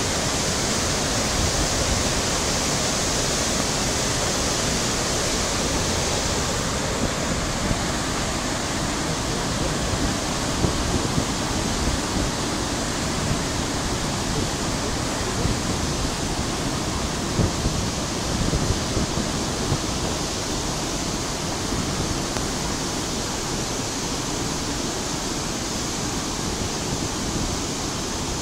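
Water released through a dam gate, rushing and churning as white water into the river below: a steady, full rushing noise. A few short low bumps stand out about halfway through.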